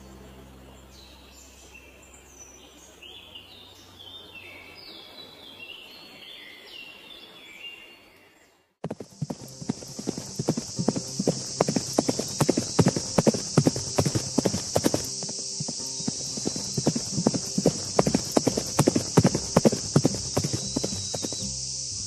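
Birds chirping faintly in short falling calls, then about nine seconds in the sound switches to a group of horses walking, hooves clip-clopping in a quick irregular patter over a steady high hiss.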